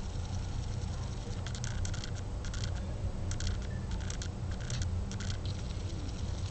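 Clusters of small quick clicks from a compact digital still camera's lens motor as the autofocus hunts in and out, through the middle few seconds, over a steady low hum.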